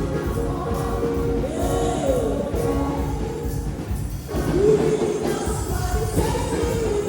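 Church choir singing a gospel song with band accompaniment and a steady beat; sung phrases glide and swell, with a short drop in the music about four seconds in.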